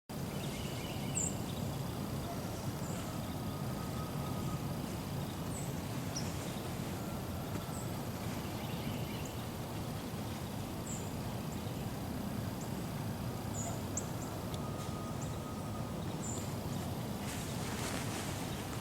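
Outdoor woodland ambience: a steady low rumble of wind or distant noise, with faint, short, high bird chirps scattered throughout. Near the end there is a brief rise in hiss.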